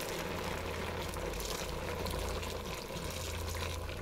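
Water poured in a steady stream from a stainless steel jug into a cast-iron Dutch oven holding browned beef pieces and spices.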